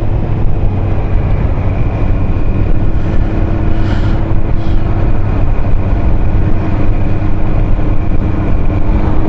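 Motorcycle engine running at a steady cruise, mixed with wind and road rush, heard from a camera mounted on the bike.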